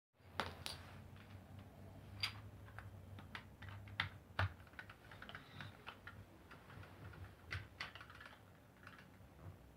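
Scattered light plastic clicks and taps from a Pororo automatic domino toy, irregularly spaced, with a few sharper knocks.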